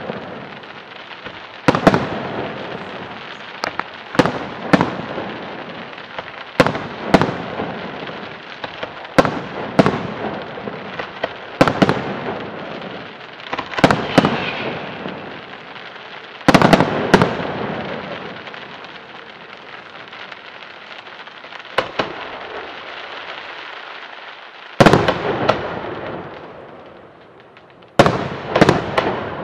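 Aerial fireworks shells bursting in a display, with sharp booms every second or two, often in quick pairs, over a continuous hiss between them. There is a lull of a few seconds after about eighteen seconds before the bursts resume.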